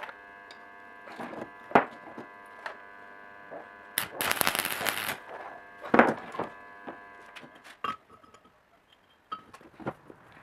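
A hammer striking a red-hot steel bar held in a bending jig: a few sharp metallic strikes, the loudest about two and six seconds in, over a steady hum that stops about eight seconds in. A noisy rush lasting about a second comes about four seconds in.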